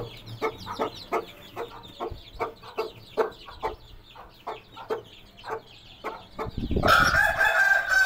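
Young chicks peeping over and over, a few short calls a second, with the mother hen clucking among them. Near the end a louder, long chicken call of about two seconds cuts in.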